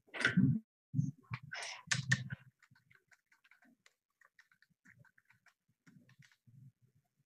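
A few brief vocal noises in the first couple of seconds, then soft, scattered clicks of a computer keyboard being typed on.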